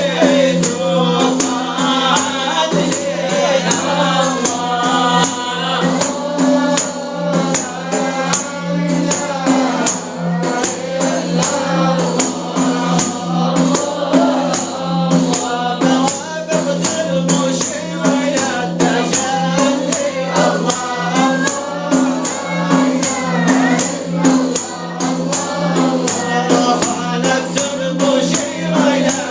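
Sufi devotional chant (inshad) sung by a lead voice and a chorus, over jingling frame-drum beats in a steady rhythm.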